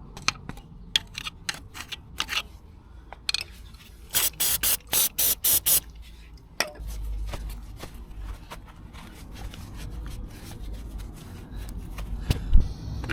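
An aerosol spray can fires about six short hissing bursts in quick succession, about four seconds in. Scattered clicks, rubbing and scraping of parts and tools come before and after.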